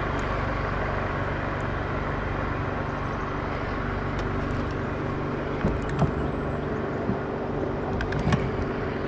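Motor humming steadily under the boat, with a few light knocks about six and eight seconds in.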